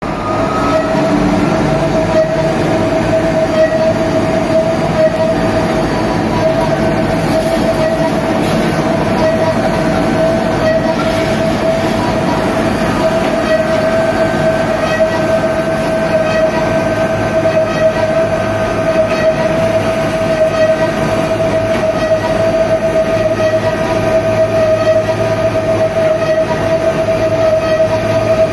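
WNFS-40B stainless-steel spice grinder running at full speed while grinding star anise, a loud, steady whine over a rough grinding noise.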